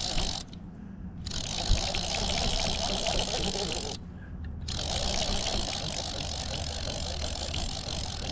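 Large fishing reel being cranked steadily to reel in a hooked catfish, a continuous mechanical whirring that stops briefly twice, about half a second in and about four seconds in.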